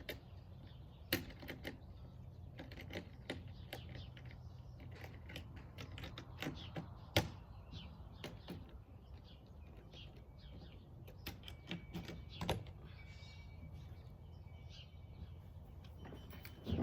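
Irregular clicks and knocks of a modular kayak's hard plastic hull sections and fittings being handled and fitted together, a few loud knocks among many lighter ticks.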